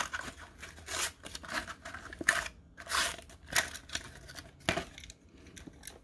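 A die-cast toy car's blister pack being torn open by hand: the cardboard backing card ripping and the clear plastic bubble crinkling, in a series of irregular rips.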